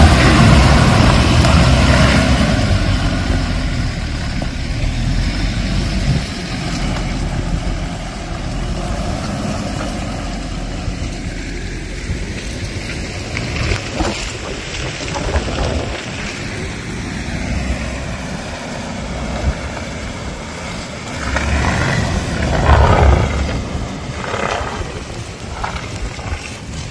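Off-road vehicle engine running under load on a slippery mountain trail. It is loudest at the start, eases off, then surges again about 21 to 23 seconds in, with scattered knocks.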